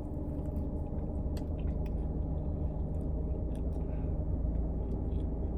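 A person chewing food, soft wet mouth clicks and smacks over a steady low hum.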